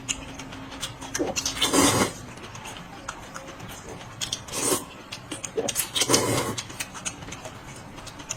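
Close-up eating sounds: a person chewing and slurping noisily in several short bursts, with small clicks between them.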